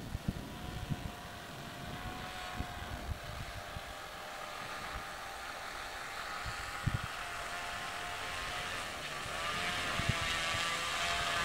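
RC model autogyro's propeller motor running steadily in flight, its pitch dipping slightly and then rising and growing louder about nine seconds in, with scattered low thumps.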